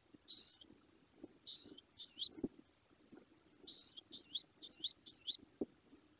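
Short-toed eagle calling: short, high whistled notes, each rising in pitch, in two bursts of three and then four. Two faint knocks come in between.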